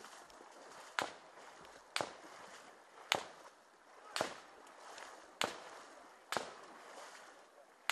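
Sporadic single gunshots, about one a second. Each is a sharp crack followed by a short echo.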